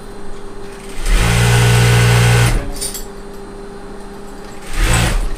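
A JUKI industrial lockstitch sewing machine stitching fabric as a test run after repair. It runs in two goes: one of about a second and a half starting a second in, and a short one near the end, with a quieter steady hum between.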